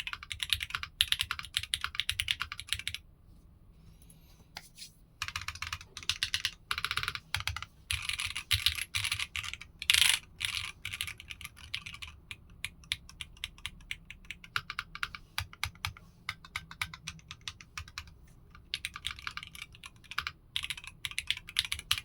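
Typing on a Tech Bear 8-TKL mechanical keyboard built foamless, with Strawberry Jelly v2 switches on an aluminium plate and 1.6 mm PCB. Rapid runs of sharp keystroke clicks with a short pause about three seconds in, and one louder single strike about ten seconds in.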